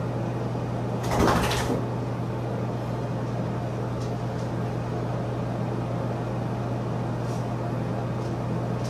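A steady low mechanical hum, with one short burst of rustling noise about a second in.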